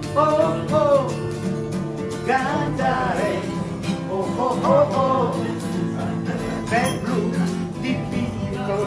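A man singing to his own acoustic guitar accompaniment, the guitar played in chords under a voice that wavers and glides between notes.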